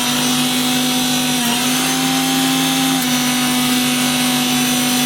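Electric mixer grinder (mixie) running at full speed, dry-grinding whole spices into a fine powder: a loud, steady motor whine with slight dips in pitch about a second and a half in and again at three seconds. It is switched off right at the end and its pitch starts to fall.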